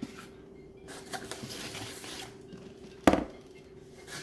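Hard plastic Glock pistol case being lifted from a cardboard box and handled: light scrapes and rustles, then one sharp knock about three seconds in.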